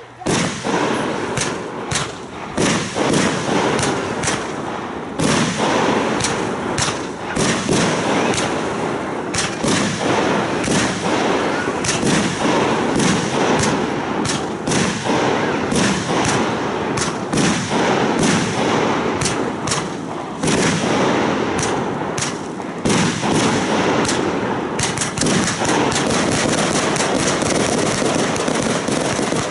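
Aerial fireworks firing in quick succession: shells launching and bursting, many sharp bangs over a dense, continuous crackle that eases briefly a few times and gets faster near the end.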